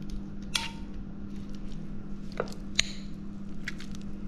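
A spoon stirring a soft bacon-and-cheese stuffing in a bowl: squishing, with a few sharp clinks and scrapes of the spoon against the bowl, over a steady low hum.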